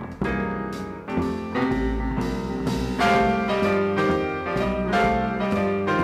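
Live jazz piano trio: a Yamaha grand piano plays chords and melody over upright double bass and drums, with cymbal strokes about twice a second. A louder piano chord comes in about three seconds in.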